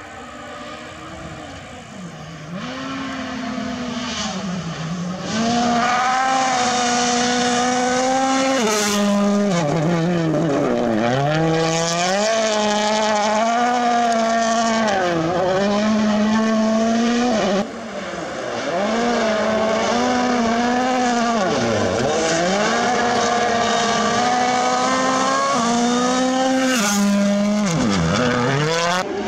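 Hyundai i20 WRC rally car's turbocharged four-cylinder engine driven flat out on gravel, revving up and dropping again and again through gear changes and lifts for corners, over the hiss of gravel and tyres. It builds up over the first few seconds as the car approaches.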